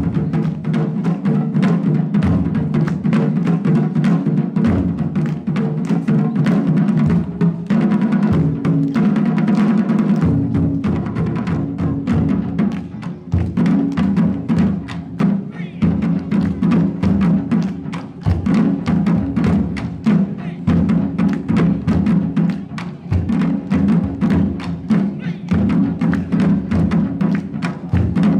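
Japanese taiko ensemble drumming: a large barrel-bodied nagado-daiko and smaller rope-tensioned drums struck with wooden bachi in a loud, fast, continuous rhythm of many quick strokes.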